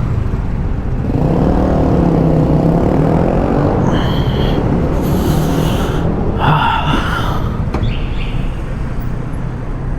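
Keeway Superlight 125cc motorcycle engine running under way, its pitch rising as it pulls away about a second in, then easing as the bike slows into a parking spot. Steady wind and road rumble sit underneath, and a few brief higher-pitched tones come and go in the middle.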